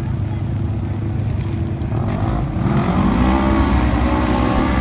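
Several side-by-side UTV race engines running together, then revving harder and rising in pitch about two and a half seconds in as the pack accelerates.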